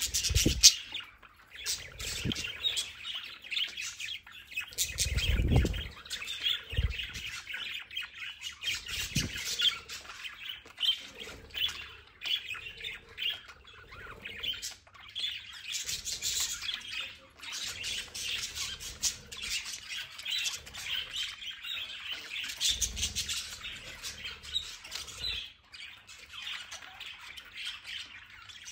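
A flock of budgerigars chattering and chirping without a break, several birds at once, with a few low thumps among the calls.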